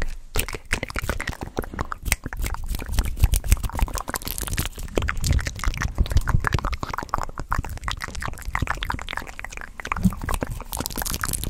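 Close-miked ASMR mouth sounds and fast hand movements: a rapid, irregular run of wet mouth clicks and smacks with rustling, and low thumps as the hands sweep past the microphone.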